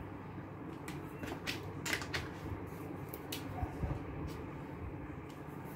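Scattered light clicks and taps of plastic brush pens and their caps being handled over a plastic pen case, with soft handling noise between.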